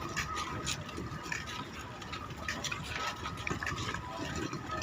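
Busy passenger-port ambience: indistinct murmur of people under a steady background noise, with scattered light clicks and knocks and a faint steady tone. A single sharper knock comes at the very end.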